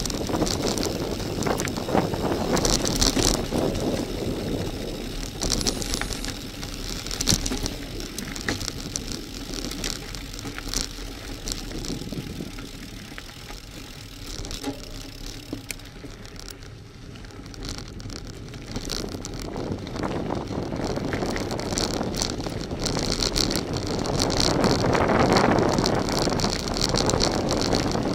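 Bicycle rolling fast downhill on a loose gravel track: tyres crunching over stones with small rattles and knocks from the bike, and wind on the microphone. It eases off about halfway through and grows louder again toward the end.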